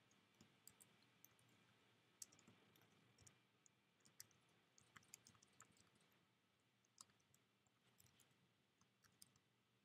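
Faint, irregularly spaced clicks of a computer keyboard being typed on, a keystroke here and there rather than a steady run.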